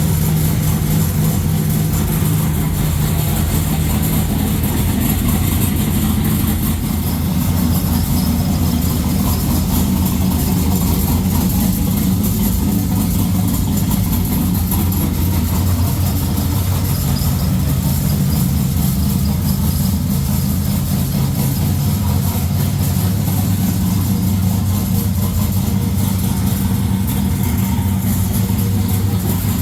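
Turbocharged Ecotec V6 engine idling steadily, with a low, even note.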